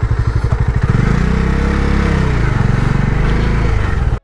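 Bajaj Dominar 400's single-cylinder engine running as the motorcycle is ridden; its pitch rises from about a second in and eases back down again. The sound cuts off abruptly at the very end.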